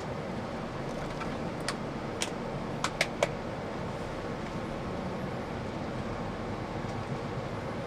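Inside a moving rail-replacement bus: steady engine and road noise, with a few sharp rattles or clicks from the cabin about two to three seconds in.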